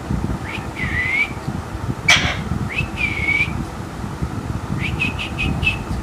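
Alexandrine parakeet vocalizing in its high, whistle-like voice: two drawn-out calls about a second and three seconds in, with a short, loud harsh call between them, then a quick run of about five short chirps near the end.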